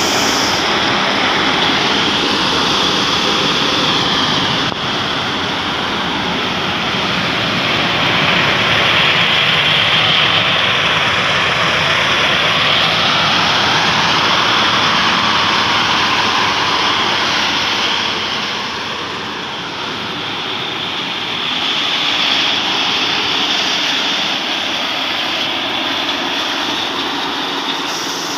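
Jaw crusher and its stone-crushing plant running: a steady, loud mechanical noise of machinery and rock being crushed, with no separate knocks standing out. It eases off slightly about two-thirds of the way through, then picks up again.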